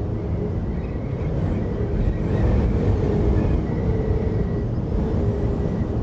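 Designed ambient drone sound effect: a steady deep rumble with faint, wavering higher tones drifting in and out above it.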